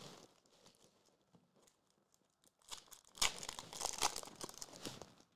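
Foil wrapper of a Topps Chrome trading-card pack being torn open and crinkling, starting a little past halfway through as a dense run of crackles and rips.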